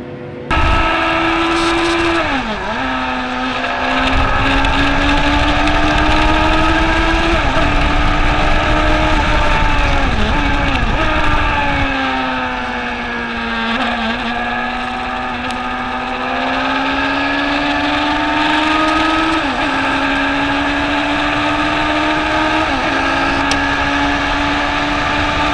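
Open-wheel race car's engine heard from an onboard camera, driven hard around a circuit. The pitch climbs steadily, then drops sharply at each gear change, about six times.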